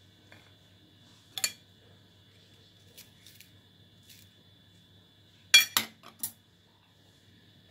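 A metal knife clinking and knocking against a ceramic plate: a few light clicks, then a quick cluster of four sharper clinks near the end.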